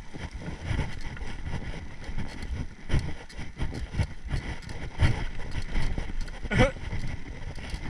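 Mountain bike rattling and knocking over a rough dirt trail, with wind rumbling on the helmet-mounted action camera's microphone. There is a brief rising squeak about six and a half seconds in.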